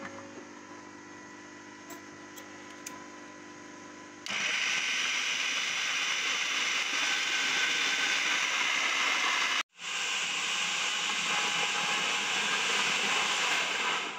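Electric food processor shredding carrots: a faint steady hum, then about four seconds in a loud, even grinding starts, breaking off for an instant a little under ten seconds in and running on until near the end.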